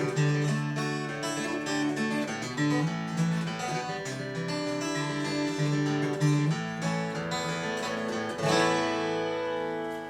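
Acoustic guitar playing the song's closing instrumental: a line of picked notes, then a final strummed chord about eight and a half seconds in that rings out and fades.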